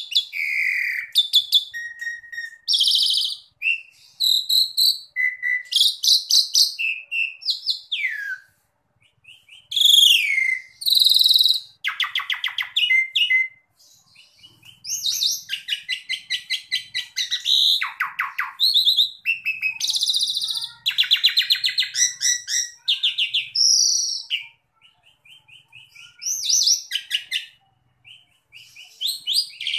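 Asian pied starling singing a long, varied song: clear whistles and rising and falling notes mixed with harsh, rattling chatters, broken by a few short pauses.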